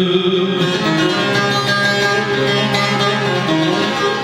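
Bağlama (long-necked Turkish saz) played solo: a run of plucked notes over a steady low drone string, the instrumental interlude between sung lines of an Alevi-Bektashi deyiş.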